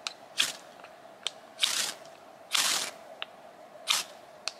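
Knife spine scraped down a ferro rod in about seven quick strikes, each a sharp high rasp, two in the middle a little longer. The spine's 90-degree edge is not especially sharp.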